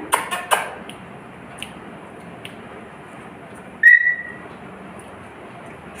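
Pet lory giving one short, clear whistle about four seconds in, dipping slightly in pitch and then holding steady. A few sharp clicks come at the start.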